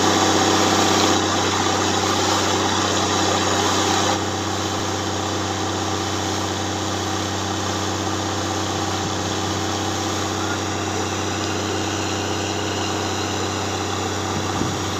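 Well-drilling machinery's engine running steadily, with the rush of water and air jetting out of a freshly struck borehole. A little louder for the first four seconds, then steady.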